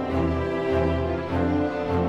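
Background instrumental music, orchestral in character, with sustained notes that change about every half second.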